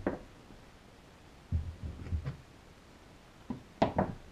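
Knocks and clatter of weights and a spring clamp being set down on glued wooden model parts on a workbench, to hold them flat while the glue sets. There is a sharp knock at the start, a few softer thumps about halfway, and the loudest knocks near the end.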